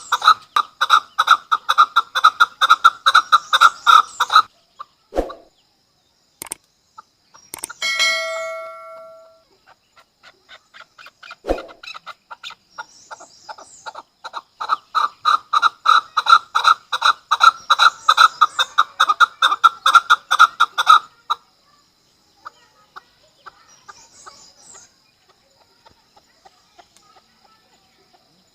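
Chukar partridge giving its rapid rally call: a fast run of repeated clucking 'chuck' notes, about five a second. The run breaks off about four seconds in, starts again around twelve seconds and swells, then stops near twenty-one seconds, leaving only faint scattered notes. A short ringing tone sounds about eight seconds in.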